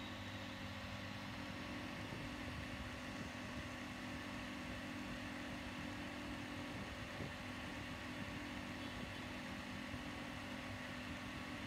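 A steady mechanical hum with a low drone and several constant tones, unchanging throughout.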